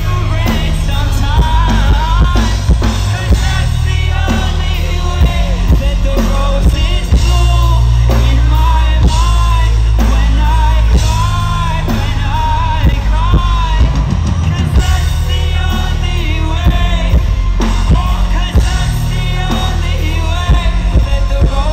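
Live rock band playing loud, with drums and a heavy bass under a male singer's voice.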